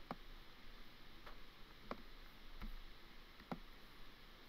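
Faint clicks of a computer mouse, about five spaced irregularly, over quiet room tone.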